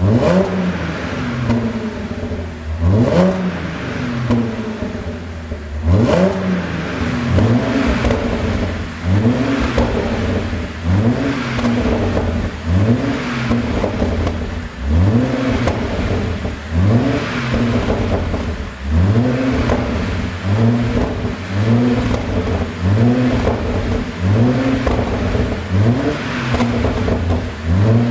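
Audi 3.0 TFSI supercharged V6 revved in repeated blips, about one every second or so, each a quick rising surge that drops back. Between blips the exhaust pops and crackles on the overrun, the sound of an ECU tune set up to make exhaust pops.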